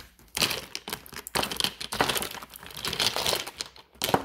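Crinkling and rustling from handling craft supplies while reaching for the black paint: a dense, irregular crackle starting about half a second in, with a sharp click near the end.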